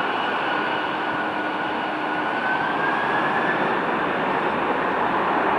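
Boeing 747-400 freighter's four jet engines spooling up to takeoff thrust: a steady roar with a turbine whine that rises slightly in pitch about halfway through, growing a little louder as the takeoff roll begins.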